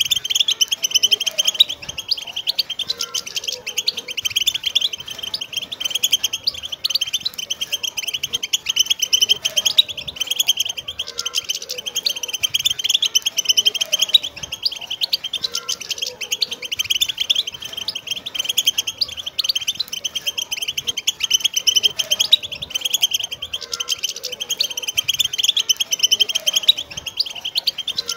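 Several wild European goldfinches singing together: a dense, unbroken chorus of rapid, high twittering and trills.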